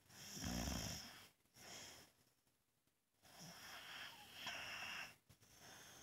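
Boxer dog snoring in its sleep: one loud snore about half a second in and a short breath after it, then, after a pause, a longer, quieter breath from about three seconds in.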